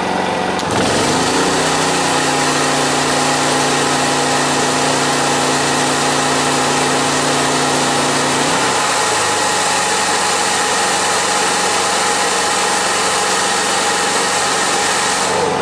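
Honda EU2200i inverter generator's engine revving up to take a sudden 1500-watt hair-dryer load switched on about a second in, with the dryer's steady blowing hiss joining it. The engine note changes again a little past halfway while the generator carries the full load without overloading.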